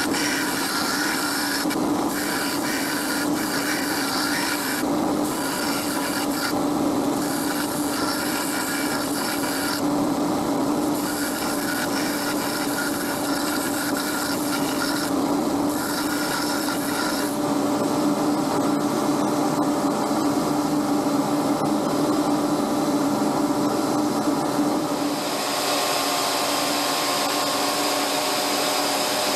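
Bench belt sander running as a metal bracket is ground against the belt. The grinding hiss drops away for a moment each time the piece is lifted off, several times at first, then stays on steadily. Near the end the sound changes to a different steady machine hum.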